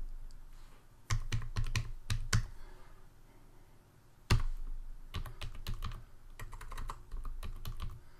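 Typing on a computer keyboard: a quick run of keystrokes about a second in, a pause, one hard keystroke past the middle, then a steadier run of keystrokes near the end.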